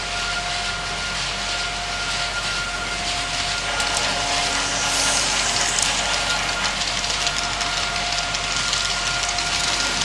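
Model railway train running on the track: a steady electric motor whine over the hiss of wheels on rails, with fine rapid clicking, getting a little louder about halfway through.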